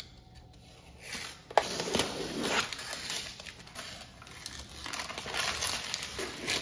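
Paper protective backing being peeled off a clear acrylic sheet and crumpled in the hand, crinkling and crackling from about a second in, with one sharp crack about a second and a half in.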